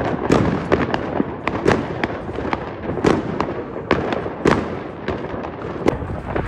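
Fireworks going off overhead: a dense, irregular string of sharp bangs and crackles, several a second, over a continuous rumble.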